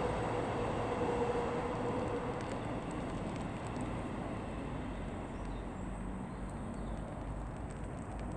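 A steady rumble of distant vehicle noise that slowly fades, with a faint steady hum for the first couple of seconds.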